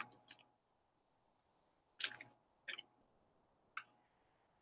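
Mostly near silence, with three faint short rustling scrapes as moist topsoil is tipped from a plastic cup into a plastic bottle: about two seconds in, again shortly after, and near the end.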